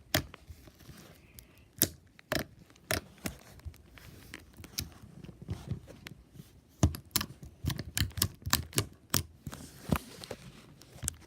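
Hand-played slime being stretched, squeezed and pulled: irregular sticky clicks and pops, busiest near the end.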